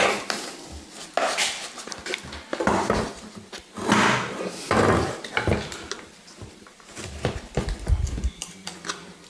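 Tools and hard parts clinking, knocking and scraping at irregular intervals while a scooter's rear bodywork is put back together.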